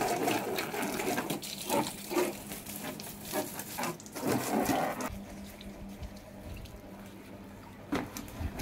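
Water jetting from a garden hose and splashing on a scooter's plastic body panels and floorboard, spattering unevenly. About five seconds in the splashing stops and it goes much quieter, with a couple of light knocks near the end.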